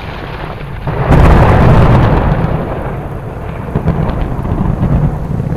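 A long roll of thunder: it swells to a loud crack-and-rumble about a second in, then rumbles on more softly.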